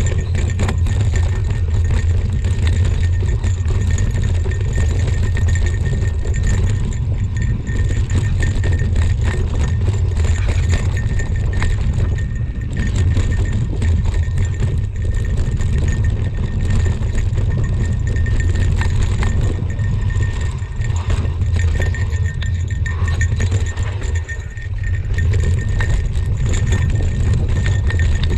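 Mountain bike descending a rough dirt trail: a steady low rumble of wind buffeting the action-camera microphone, over the constant crunch and rattle of tyres and bike on loose ground.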